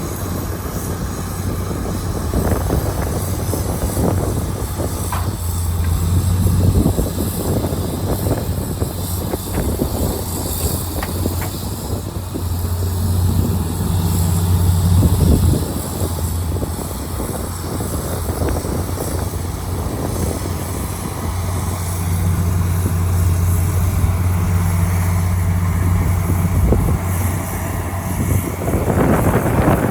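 Heavy diesel earthmoving machinery running, its low engine note swelling in several bouts as it works under load, with a few brief clanks.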